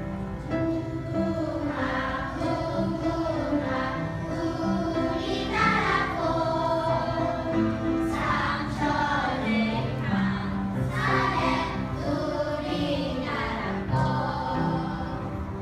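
A children's choir singing a song together, with piano accompaniment.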